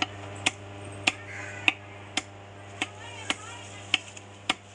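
Knife chopping through fish onto a wooden chopping block: nine sharp chops at an even pace of about two a second, over a steady low hum.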